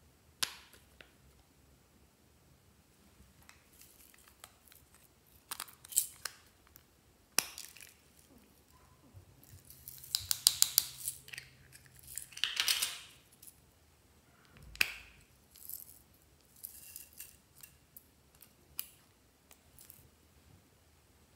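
Small plastic glitter containers handled and shaken over a tray of slime: scattered clicks and taps, a quick rattle of sequins and star glitter about ten seconds in, then a short swish and a dull knock.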